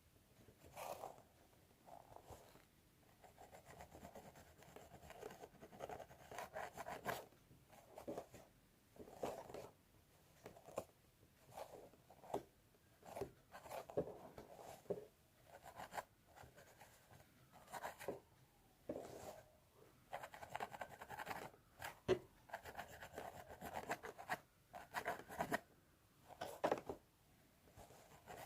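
Fingernails scratching through hair on a scalp, close to the microphone, in short irregular strokes that come roughly once a second.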